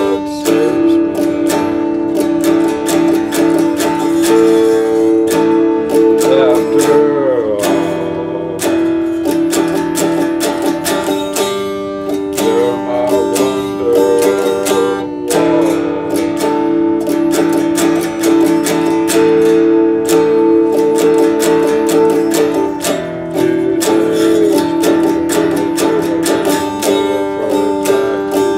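Electric guitar, a RockJam Stratocaster-style model, strummed with a pick through a continuous chord progression in a steady rhythm.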